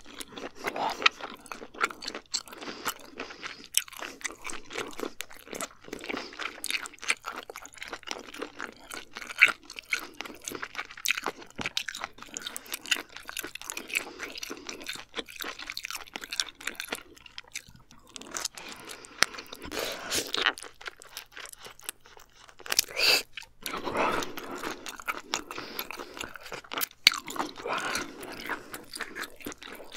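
A person chewing and biting grilled abalone close to an ASMR microphone: a dense run of small wet clicks and mouth sounds, with a few short pauses.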